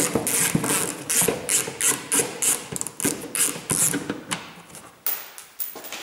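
Hand ratchet clicking in quick, even back-swings, about four a second, as Torx T25 screws are loosened; the clicking stops about four seconds in, followed by a few faint knocks.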